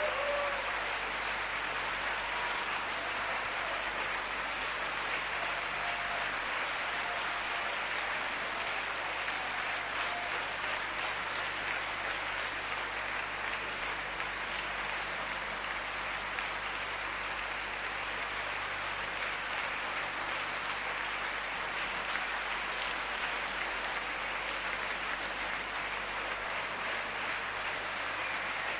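Large concert-hall audience applauding steadily, with no break.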